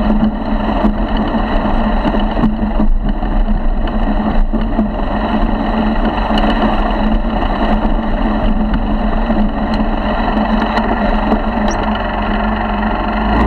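50cc four-stroke motorized bicycle engine running steadily under way across rough grass, with a few brief knocks from bumps.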